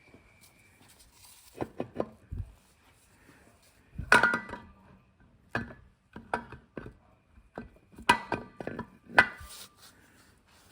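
Metal engine parts knocking and clinking against each other and the bench as they are handled, about a dozen irregular knocks. The loudest, about four and about eight seconds in, ring briefly.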